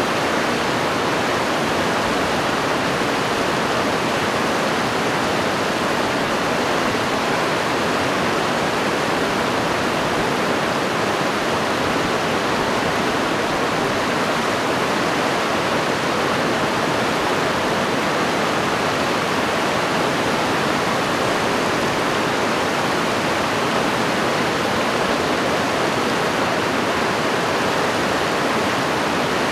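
Fast mountain stream rushing over rocks in white water, a steady, unbroken rushing noise.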